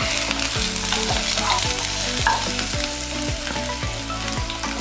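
Finely chopped garlic sautéing in a little hot oil in a pan, sizzling steadily.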